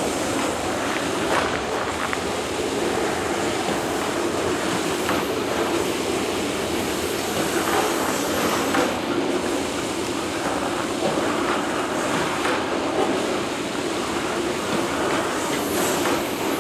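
Loaded coal cars of a long freight train rolling steadily past, a continuous rumble of steel wheels on rail with faint clicks now and then.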